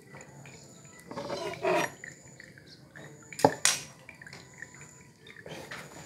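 Small handling sounds: a short rustle about a second in, a sharp click a little past the middle followed by a brief rustle, and another soft rustle near the end.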